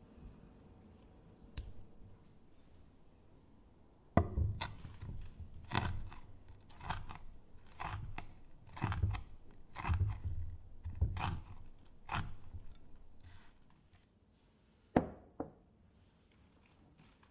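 Chef's knife chopping fresh rosemary on a wooden cutting board: about ten sharp strokes at an uneven pace of roughly one a second, starting about four seconds in. Near the end, two sharp knocks.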